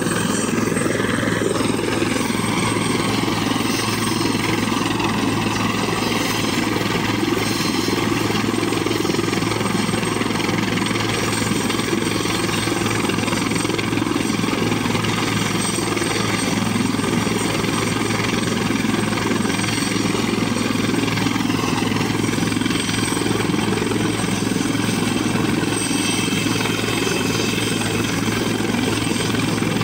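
Helicopter running on the ground, its rotor and turbine engine turning at a steady idle: a constant low hum and rushing beat with a thin high turbine whine above, unchanging throughout.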